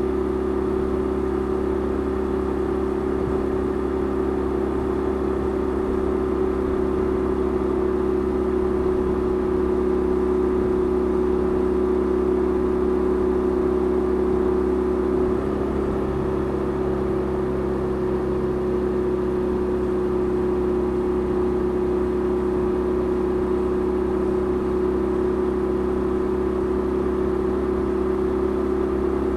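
A 2008 BMW R1200RT's air/oil-cooled flat-twin boxer engine running steadily at highway cruising speed. Its pitch drops slightly about halfway through.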